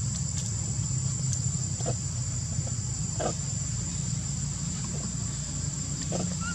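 A steady high-pitched insect drone over a low rumble, with a few short faint squeaks.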